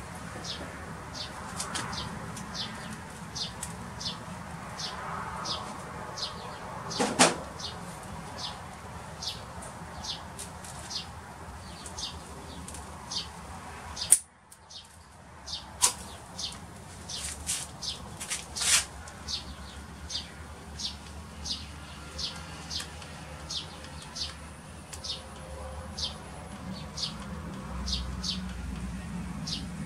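Light clicks and rustles of thin wire being handled and snipped with pliers, with a sharp click about halfway through. Behind them, a bird's short high chirps repeat about twice a second.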